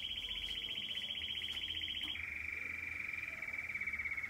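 Young Belgian canary singing a long, rapid trill: a high rolling tour that switches to a lower trill about two seconds in.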